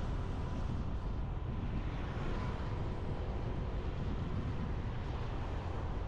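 Motorbike ride heard through an action camera's microphone: a steady rush of wind on the mic and road noise, with the bike's engine running evenly underneath.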